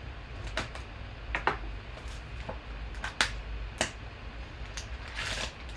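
Scattered clicks and crackles of cellophane wrap and a cardboard trading-card box being slit open with a folding knife and handled. About five seconds in there is a longer crinkling rustle of a foil card pack.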